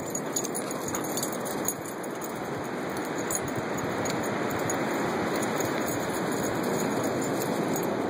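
Steady rushing noise of ocean surf.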